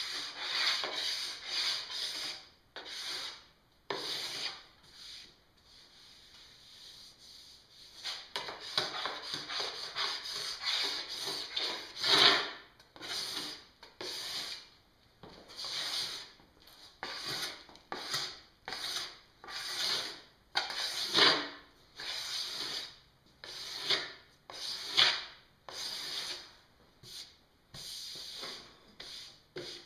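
Metal scraper being drawn over a snowboard base in repeated strokes, shaving excess P-Tex off the filled gouges to leave a smooth surface. The strokes come about one or two a second, with a quieter, fainter stretch a few seconds in.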